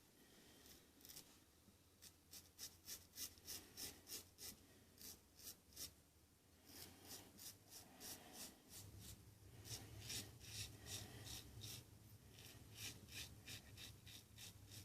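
Faint scratchy strokes of a Merkur 39c adjustable safety razor's blade scraping through beard stubble, in runs of about two to three strokes a second.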